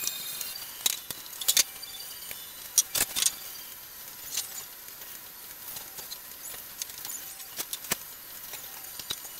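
Irregular light knocks and clicks of hand tools and timber pieces being handled against a wooden workbench frame, with several sharper taps in the first three seconds and sparser ones after.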